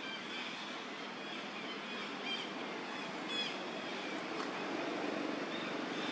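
Steady outdoor background noise with a few short, high, falling chirps, two of them about a second apart near the middle.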